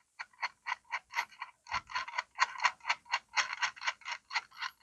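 Ratchet wrench clicking in quick, even strokes, about five clicks a second, as a fastener is turned down, with one duller knock partway through.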